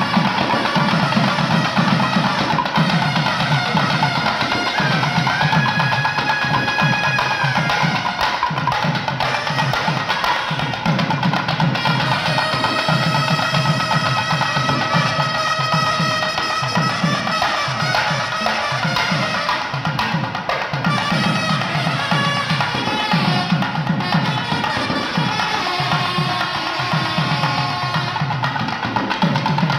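Nadaswaram and thavil ensemble playing: the double-reed nadaswaram pipes carry a melody with sliding notes over a continuous beat of thavil drum strokes.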